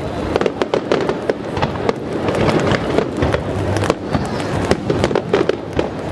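Professional aerial fireworks display at full pace: shells and comets bursting in a dense, overlapping run of bangs and pops, several a second.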